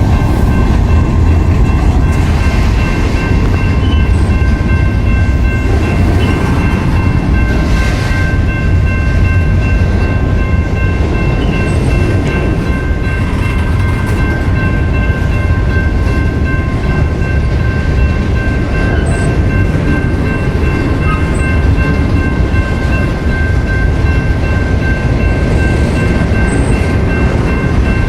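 BNSF freight train rolling past: a loud, steady rumble of cars on the rails, with a thin high steady ringing throughout.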